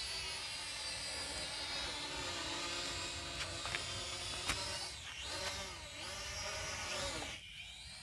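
Toy quadcopter's small electric motors and propellers whining steadily, the pitch dipping and rising several times past the middle as the motor speed changes, with a few sharp clicks; the whine cuts off suddenly near the end.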